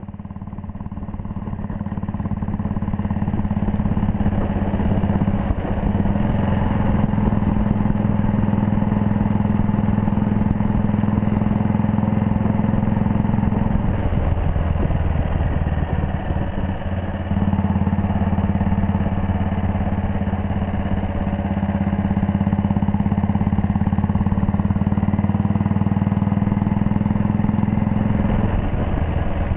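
1939 Red Panther Model 40 single-cylinder motorcycle engine running steadily while the bike is ridden, the sound swelling up over the first few seconds. The engine note dips and breaks briefly about halfway through, then picks up again.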